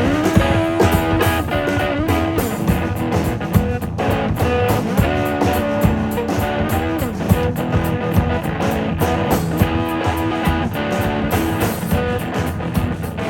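Live band playing an instrumental passage: guitar lines with sliding, bending notes over a steady drum beat and bass.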